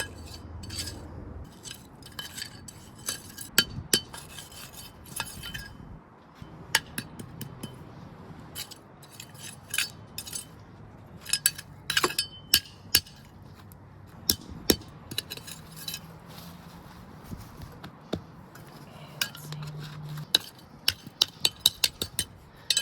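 Patio pavers being laid: many sharp clinks and knocks of hard paver against paver, irregular and scattered throughout, some louder and ringing.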